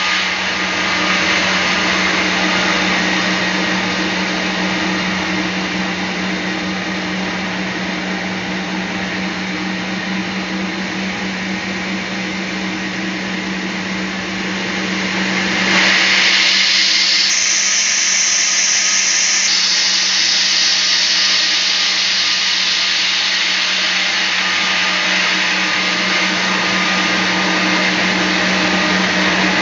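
Band sawmill running and sawing teak logs: a steady motor hum under a continuous hiss. The sound grows louder and sharper about halfway through.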